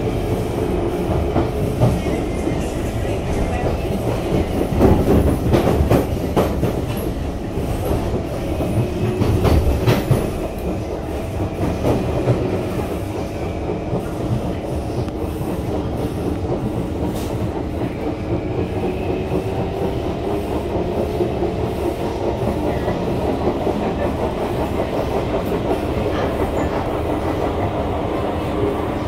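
SMRT C151 metro train heard from inside the car as it runs. There is a steady rumble of wheels on rail and a hum from the drive, with a stretch of louder wheel clatter about five to ten seconds in.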